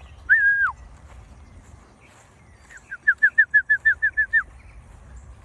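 A songbird singing: a clear whistled note that drops away at the end, then, about three seconds in, a quick run of about ten short whistled notes.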